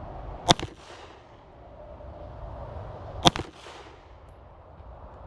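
Two Glock pistol shots, slow and deliberate, a little under three seconds apart, each followed by a short echo.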